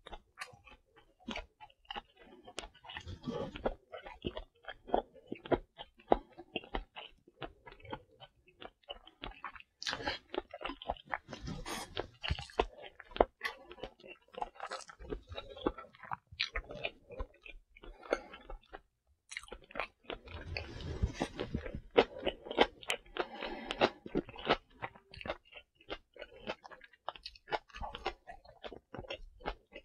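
Close-miked chewing and biting, with soft crunches and short clicks all through.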